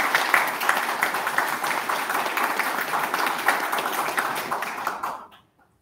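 Audience applauding, stopping about five seconds in.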